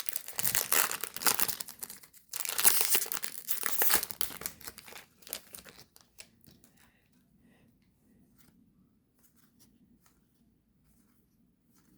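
Foil wrapper of a baseball card pack torn open and crinkled, in two loud stretches over the first four seconds. It then dies away to near silence with a few faint ticks, likely the cards being handled.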